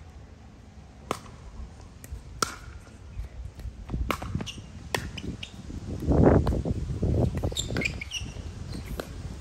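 Pickleball paddles striking the plastic ball and the ball bouncing on the court during a rally: a series of sharp pops, most about a second apart. A louder muffled rush of noise swells around six seconds in, with a few short high squeaks after it.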